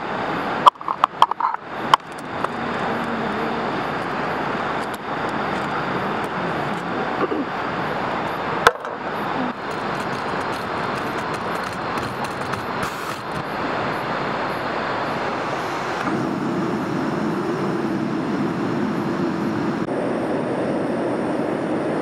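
Steady rush of flowing river water, with a few sharp metallic clicks in the first two seconds as a compact canister stove is handled out of its case, and one more click later. About two-thirds of the way through, the stove's gas burner lights and runs with a steady roar on top of the water.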